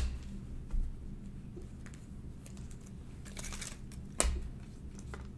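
Trading cards being set down onto stacks of cards on a table: a few sharp taps as cards land, the loudest about four seconds in, with a brief soft brushing of card sliding over card just before it.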